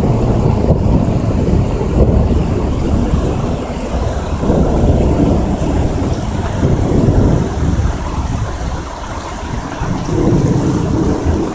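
Thunder rolling in several long, swelling rumbles over a steady hiss of rain.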